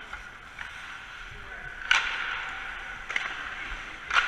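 Ice hockey sticks striking pucks: two sharp cracks, one about two seconds in and one near the end, with fainter clicks between, over a steady rink hiss.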